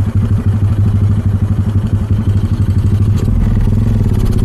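Motorcycle engine running with a loud, fast, even exhaust beat; the note shifts slightly about three seconds in.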